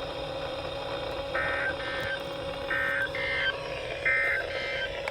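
Three short warbling bursts of digital data from a weather-radio emergency alert, the SAME code sent three times with about a second between bursts. They mark the end of one warning or the start of the next.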